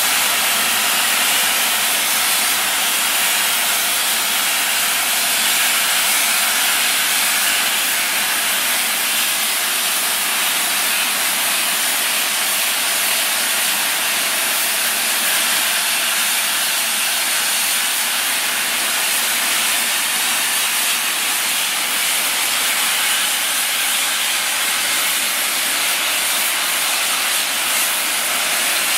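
LMS Royal Scot class steam locomotive No. 46100 standing with steam escaping from its open cylinder drain cocks and from the top of the boiler: a loud, steady hiss with no exhaust beats.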